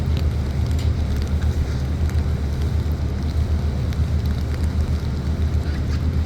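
Steady low drone of a sightseeing cruise boat's engines, with some wind on the microphone.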